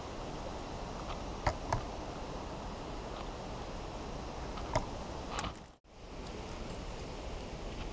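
Steady outdoor background hiss with a few light clicks, a pair about one and a half seconds in and two more around five seconds, from a wooden-handled folding knife being handled on a small metal digital pocket scale.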